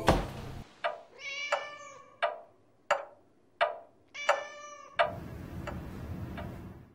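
A heavy hit, then sharp ticks about every 0.7 seconds, with two drawn-out, meow-like animal calls between them. A soft rushing noise comes in near the end.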